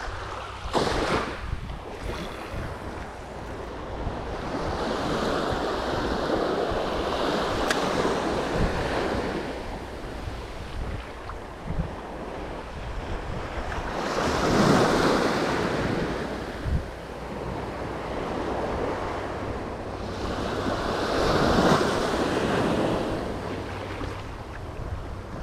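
Ocean surf breaking and washing up the beach, swelling louder three times, with wind rumbling on the microphone.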